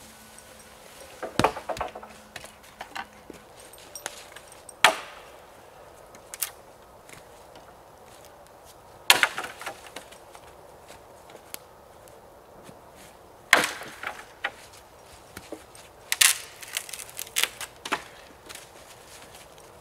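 Axe chopping into the branches of a felled dead maple: about five sharp wooden strikes a few seconds apart, some followed by splintering crackles.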